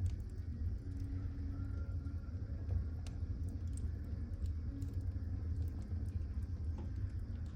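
Fire burning in a fireplace: a steady low rumble of flames with a few scattered sharp crackles and pops.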